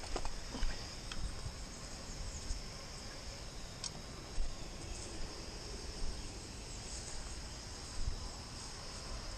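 Steady high-pitched insect chirring, with a few dull low thumps.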